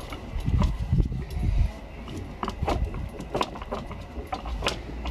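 Plastic lower fairing panel of a Honda ST1300 motorcycle being worked loose and pulled off by hand: a series of light clicks and knocks, with a low rumble in the first second or so.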